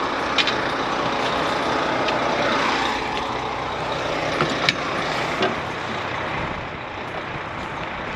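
Combine harvester's diesel engine running at a steady drone, with a few sharp clicks.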